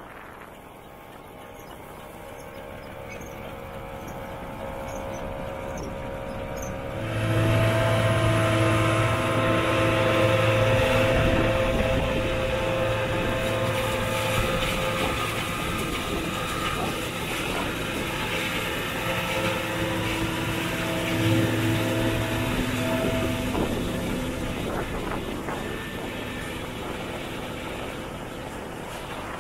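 John Deere 7250 self-propelled forage harvester running while chopping corn: a steady engine and machinery drone with a low hum. It grows louder over the first several seconds, jumps up about seven seconds in, then eases off toward the end.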